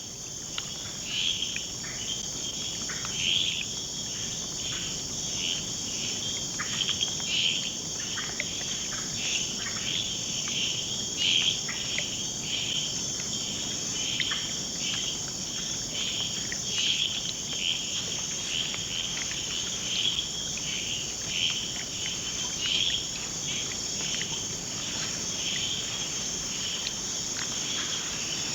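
Steady high insect chorus of crickets and similar insects trilling, with many short chirping calls scattered over it.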